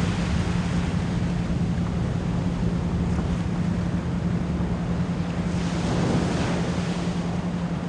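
Ocean waves washing in a steady hiss, one wave swelling about six seconds in, under a steady 174 Hz pure tone with a fast isochronic pulse.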